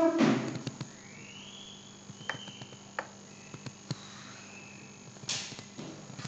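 Quiet room tone with a few faint computer mouse clicks and a couple of breaths, one at the start and one about five seconds in.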